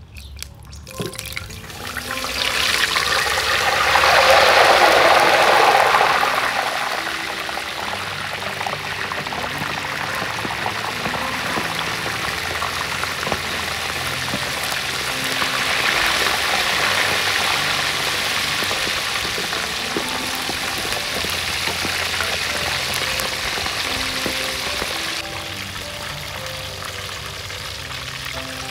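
Food deep-frying in a large wok of hot oil: a loud sizzle swells about two seconds in and is strongest a few seconds later, then settles into a steady sizzle. The food is a whole spice-coated stingray and pieces of ginger.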